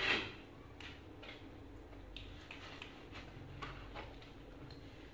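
Faint, scattered clicks and small mouth smacks of macaques chewing pieces of fruit, a few irregular ticks a second.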